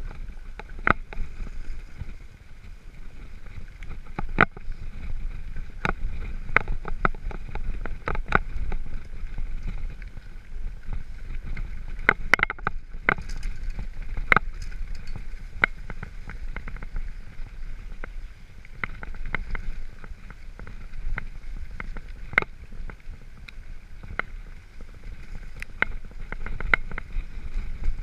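Mountain bike rolling over a rough, leaf-covered dirt trail: a low rumble from the tyres and air, with irregular sharp clicks and rattles from the bike as it hits bumps.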